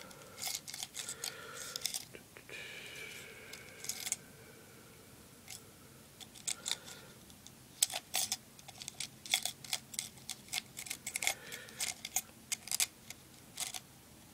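Small steel lock picks and tension tools clicking and tapping against each other as they are handled, with many sharp, irregular clicks.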